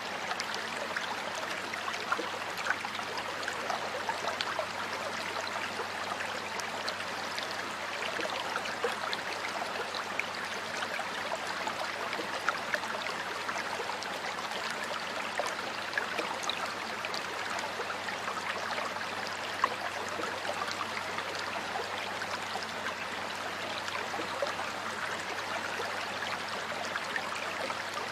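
Water flowing over rocks in a stream: a steady rushing with many small splashes and droplet ticks throughout.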